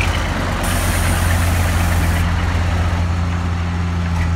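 Diesel engine of a loaded dump truck running steadily at low speed as the truck pulls past and away, a deep steady drone. A high hiss sounds for about a second and a half near the start.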